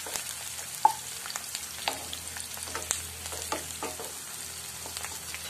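Chopped onions sautéing in oil in a frying pan, a light sizzle under the irregular scrapes and taps of a spatula stirring them.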